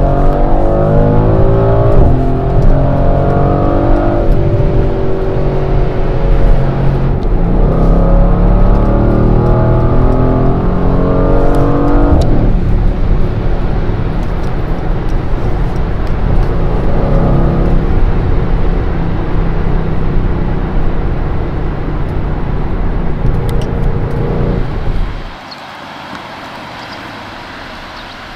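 Mercedes-AMG GLC63 S Coupe's twin-turbo V8 accelerating hard through the gears, heard from inside the cabin: the engine note climbs and drops at each upshift, four times in the first twelve seconds or so. It then settles into steady running under road and wind noise, and a little before the end the sound drops abruptly to a much quieter background.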